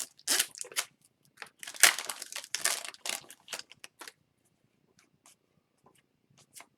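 Foil trading-card pack wrapper crinkling and being torn open, a run of sharp rustles over the first four seconds, followed by a few faint ticks.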